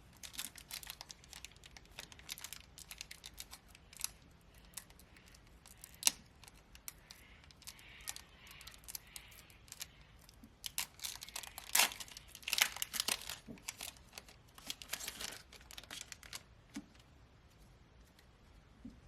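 Foil trading-card booster pack being torn open and crinkled by hand, with crackly rustling bursts that come and go. A sharp snap comes about six seconds in, and the crinkling is busiest around two-thirds of the way through.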